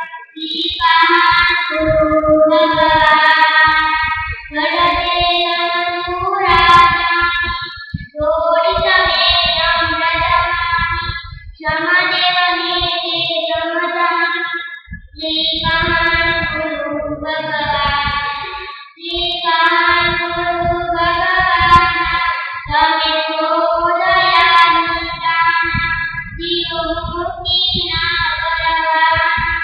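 A young girl singing a devotional hymn solo into a handheld microphone, in sung phrases of a couple of seconds each with short breaths between them.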